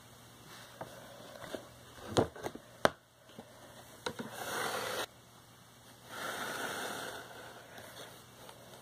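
A hardcover book being handled: two sharp knocks, then two short paper rustles like pages being turned.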